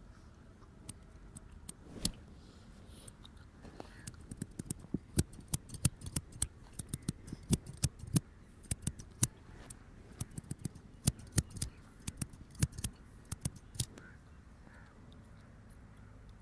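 Scissors snipping: a few single snips, then quick, irregular runs of sharp snips from about four seconds in that stop near the end.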